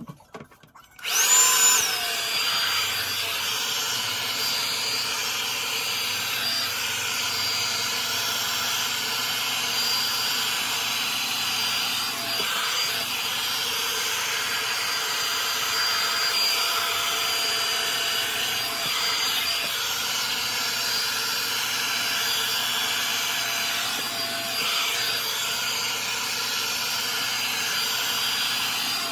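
Revlon One-Step Volumizer hot-air brush switched on about a second in: its fan motor starts with a brief higher whine that drops and settles, then runs steadily with a whine over rushing air.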